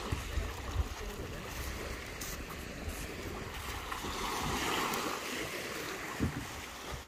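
Small waves washing on a sandy shore, with wind buffeting the microphone.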